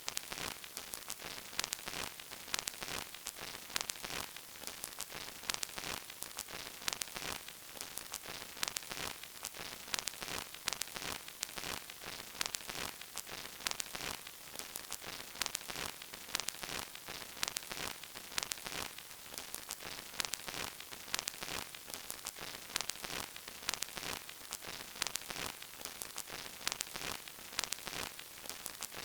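Old vinyl record crackle: a steady surface hiss with dense, irregular clicks and pops, no music.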